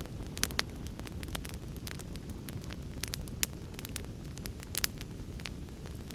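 Wood fire crackling: frequent sharp pops and snaps, a few of them louder, over a steady low rumble from the burning.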